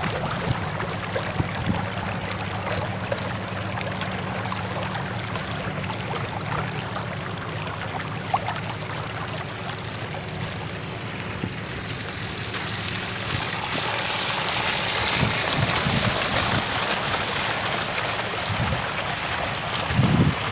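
Small decorative fountain jets splashing into a shallow tiled water channel: a steady rush of flowing water that grows louder about two thirds of the way through.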